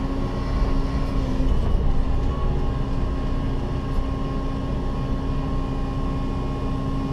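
Cat 316E excavator's diesel engine and hydraulics running under digging load, heard from inside the cab: a steady drone with a constant hum.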